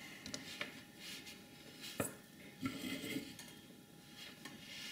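Soldering tools and small parts handled on a workbench: scattered light clicks and rustles, with one sharp click about two seconds in and a short clatter just after.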